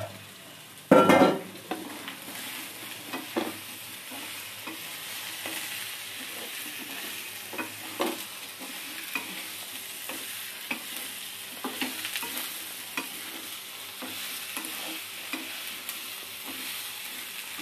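Jackfruit pieces frying in hot oil and spice paste, with a steady sizzle while a spatula stirs them, scraping and ticking against the pan over and over. A loud burst of noise comes about a second in.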